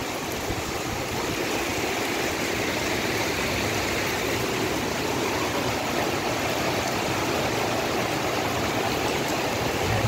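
Heavy rain pouring down steadily, with storm water running along the street: a continuous, even rush of noise.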